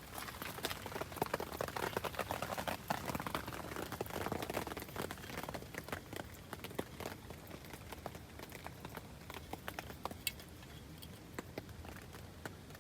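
Rain pattering on tent and tarp fabric: a dense run of small taps that thins to scattered drips about halfway through.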